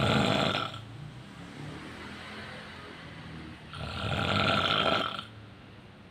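A sleeping man snoring: two loud snores about four seconds apart, each lasting over a second, with quieter breathing between them.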